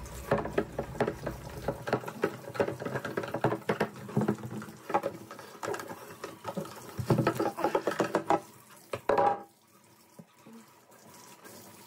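Wet sanding of a plastic taillight lens with a 3000-grit foam pad and soapy water: rapid, irregular rubbing strokes that stop about nine and a half seconds in.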